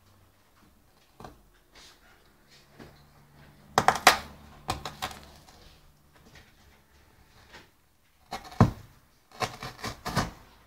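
A dog tearing and chewing cardboard: irregular crunching rips, loudest about four seconds in and again in a run near the end.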